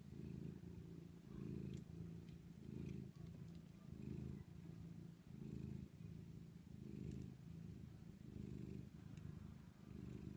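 Soft, continuous purring from a nursing cat and her kittens. It swells and eases in a steady cycle about every second and a half.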